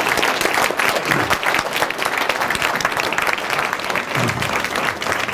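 An audience applauding, a dense steady clatter of many hands clapping at once.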